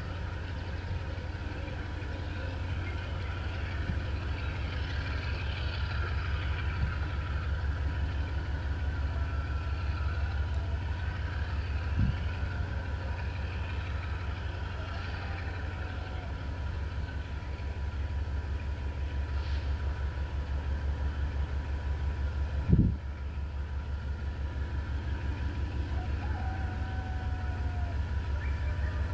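Diesel locomotive (GE TE33AC, V12 engine) running with a steady low, pulsing rumble as it rolls slowly closer. Two short thumps cut through it, a small one about twelve seconds in and a louder one about twenty-three seconds in.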